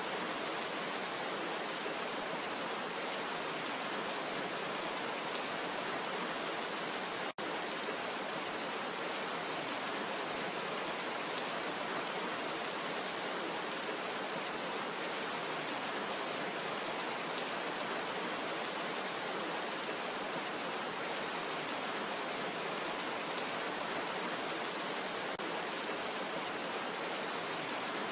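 Steady, even rainfall with a dense hiss of drops. About a quarter of the way through there is a momentary break in the sound.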